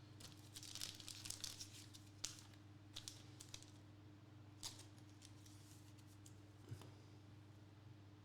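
Faint rustling and crinkling as trading cards and their plastic packaging are handled, with a few soft clicks further on, over a steady low hum.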